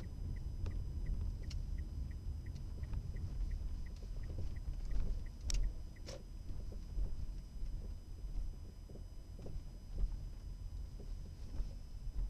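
Dashcam recording inside a car's cabin: low rumble of the car rolling slowly over a rough, unpaved yard. For the first half a turn-signal indicator ticks evenly about three times a second while the car turns, ending with two sharper clicks about halfway through; light knocks follow.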